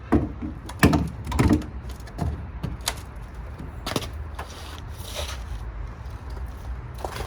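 Irregular knocks and clunks, the loudest pair about a second in, then several lighter ones, over a steady low rumble.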